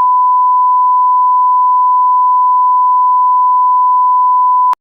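Loud, steady 1 kHz sine-tone censor bleep, one unbroken pitch that cuts off abruptly near the end.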